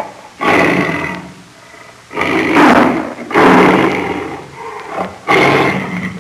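A large wild animal giving a series of loud, rough calls, four in a row, each about a second long and spaced roughly a second and a half apart.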